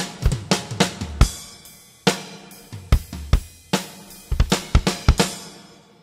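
Acoustic drum kit played solo: snare, tom and kick drum strokes in fills with Sabian cymbals crashing and ringing. Heavy crash-and-kick accents land about two seconds in and again around three seconds, and a quick run of hits near the end rings away.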